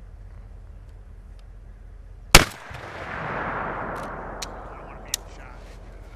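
A single shot from an M107 .50 BMG semi-automatic sniper rifle: one sharp, very loud crack a little over two seconds in, followed by a long rolling echo that dies away over about two seconds, then a few faint clicks.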